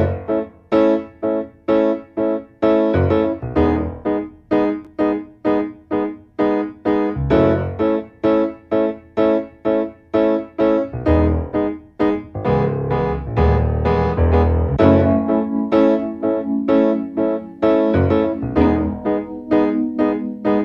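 Background music: a piano or electric piano playing a steady rhythm of detached notes, about two a second.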